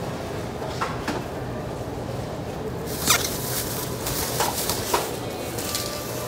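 Thin plastic produce bag crinkling several times as carrots are handled and bagged, loudest about three seconds in, over a steady background hum.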